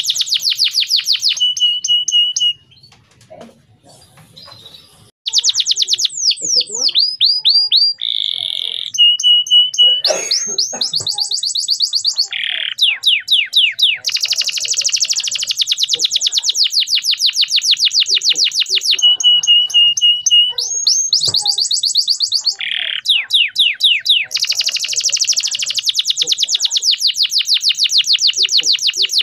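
Male canary singing: long, fast trills of rapidly repeated high notes, mixed with short rising and falling sweeps and a few held single-pitch rolls, broken by a pause of about two seconds near the start.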